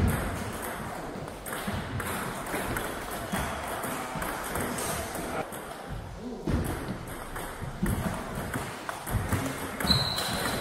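Table tennis rally: a ping-pong ball clicking off paddles and the table, over a murmur of voices in a large hall, with a short high squeak of a sneaker on the wooden floor near the end as the player lunges.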